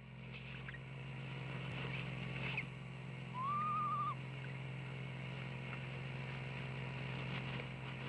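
One short quavering owl call a little over three seconds in: it rises, then wavers in pitch. Under it runs a steady low hum from a nest-box camera.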